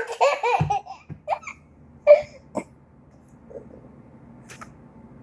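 A baby's short, high, rising-and-falling giggling squeals in reaction to a sneeze, mostly in the first second. A few single short sounds follow, then it goes quiet.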